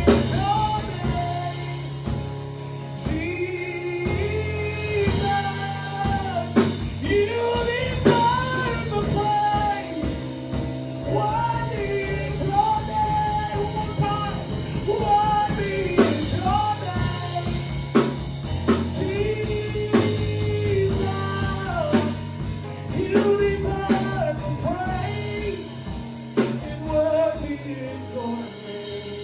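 Live worship song: a male singer on an amplified microphone sings a slow melodic line, backed by sustained keyboard chords and drum kit strokes.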